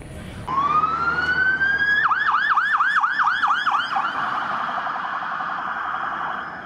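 Police car siren. A wail rises in pitch, then about two seconds in it switches to a fast yelp of repeated sweeps, and near four seconds it changes again to a quicker, buzzier warble.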